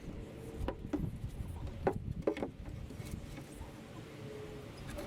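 A few scattered short knocks and clicks, the loudest two about two seconds in, over a low steady rumble.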